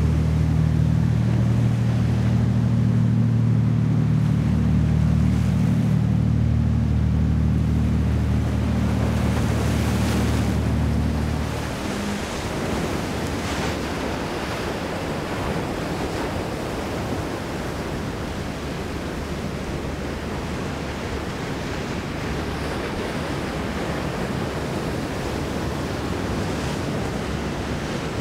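A Custom Carolina 53 sportfishing boat's engines run with a low, steady drone that cuts off about twelve seconds in. After that there is a steady wash of waves and wind, with wind buffeting the microphone.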